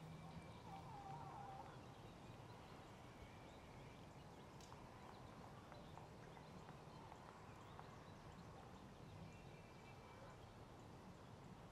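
Near silence: faint background ambience with a low hum that fades out about two seconds in, and a few faint high tones and ticks.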